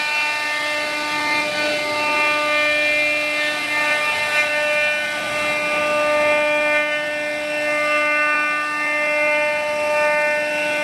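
A 1325 CNC router's spindle whining at a steady pitch as its bit carves a wooden door panel, with the rough hiss of the bit cutting through the wood rising and falling.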